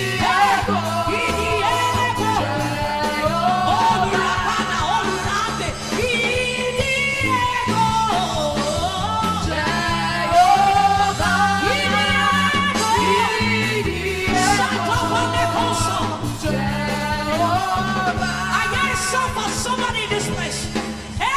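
A woman singing a gospel worship song over instrumental accompaniment.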